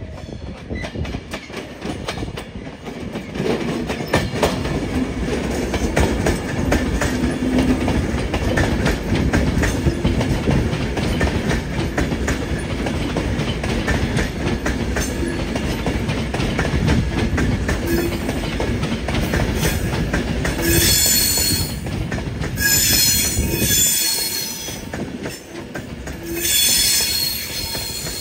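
A train running on the track, with a continuous rumble of wheels on rail. In the last third the wheels squeal in several high-pitched bursts.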